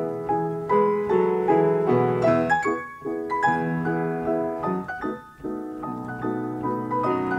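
Upright player piano playing an 88-note paper music roll: a lively piece of melody and full chords, its notes struck in quick succession, easing briefly a little past five seconds in.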